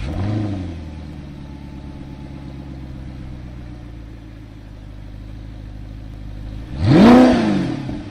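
Audi R8 with a Magnaflow straight-through exhaust idling after a short rev at the start, then one quick, loud throttle blip about seven seconds in, its pitch shooting up and falling back to idle.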